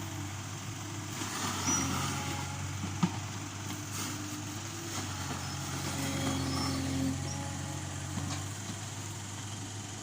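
Backhoe loader's diesel engine running steadily at idle, with a single sharp knock about three seconds in.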